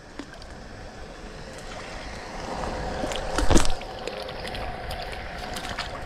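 Water splashing and sloshing at the water's edge as a hooked fish is brought in and landed, with a louder splash about three and a half seconds in.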